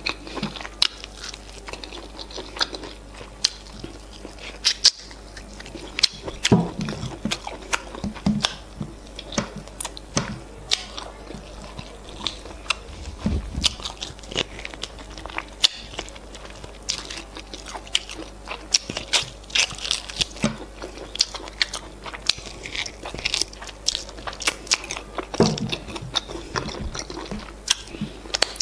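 Close-miked eating: biting and chewing meat from a plate of efo riro, with many sharp, irregular crunches and mouth clicks. Finger-sucking and licking near the end.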